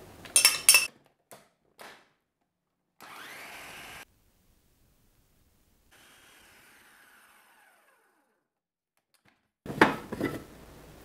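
Food processor: hard plastic clunks as the lid and pusher are fitted, then the motor running about a second with its pitch rising, and later a fainter stretch of it winding down, blending cashew paste with coconut oil. Near the end come more loud plastic clunks as the feed-tube pusher is lifted out.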